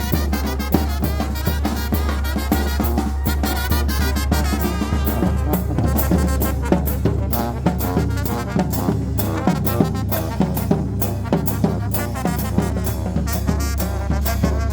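Traditional Mixtec brass band playing a lively dance tune: trumpets, trombones and saxophone over a steady drum and cymbal beat.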